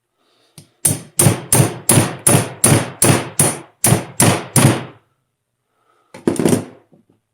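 A hammer rapping on a wrench on a seized fitting of a Brembo four-piston brake caliper. There are about a dozen quick, sharp metal blows in a steady rhythm of roughly three a second, then a pause and one last blow or two; the fitting stays stuck.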